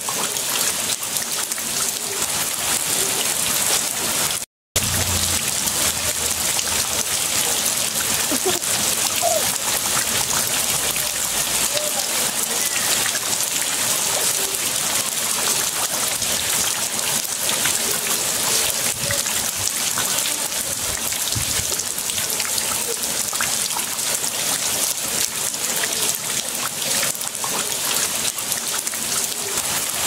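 Heavy rain falling steadily on a concrete slab and on pooled floodwater, an even hiss of many drops. The sound cuts out for a moment about four and a half seconds in.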